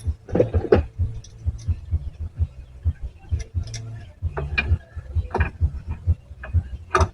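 Hand tools working on the underside of a car: irregular metallic clicks and knocks over a low rumble, with a few louder clanks.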